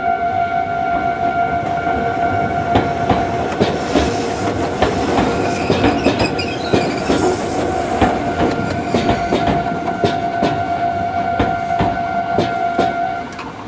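A Japanese level-crossing alarm rings steadily as an Iyo Railway train passes over the crossing. From about three seconds in, the train's wheels clatter over the rail joints in a quick, uneven run of clicks. The alarm cuts off shortly before the end.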